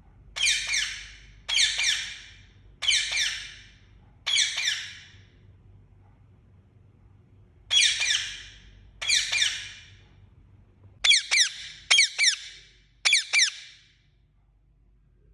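Indian ringneck parakeet calling: a series of six loud, high-pitched squawks about a second apart, then near the end three quicker, louder calls made of notes that sweep down in pitch.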